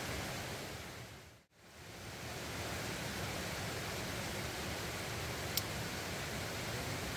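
Steady rushing of a rocky mountain stream flowing close by. It fades out and back in about a second and a half in, and a single short sharp click comes near the end.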